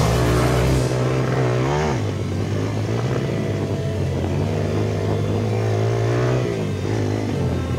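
MRF 140RC-Z pit bike's single-cylinder four-stroke engine running under load on a dirt track, its pitch rising and falling with the throttle.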